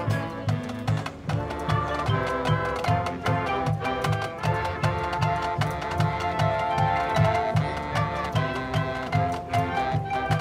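High school marching band playing: wind instruments hold layered chords over a steady low pulse about four times a second.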